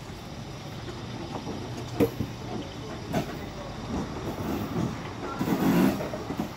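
Diesel light-rail train rolling slowly past with a steady low rumble, its wheels giving a few sharp clunks on the track about two, three and four seconds in, and a louder surge of noise near the end.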